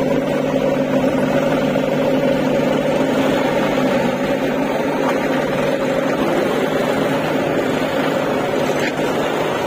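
John Deere tractor's diesel engine running steadily as it pulls a trolley loaded with earth slowly past.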